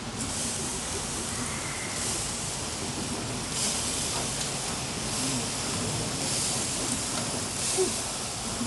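Whole chicken roasting on a grill, its skin and dripping fat sizzling steadily, with brief louder spurts every second or two.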